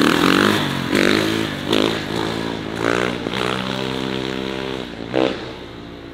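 Kawasaki KX450 single-cylinder four-stroke dirt bike engine revving in repeated throttle surges while the bike is wheelied, its pitch rising and falling about once a second, with a longer held rev near the middle. It fades near the end.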